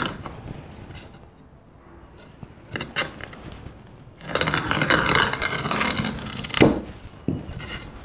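Handheld roller glass-and-tile cutter scoring a glass tile along a wooden straightedge: a scratchy scrape lasting about two seconds past the middle, ending in a sharp click, with a few light knocks from handling before and after.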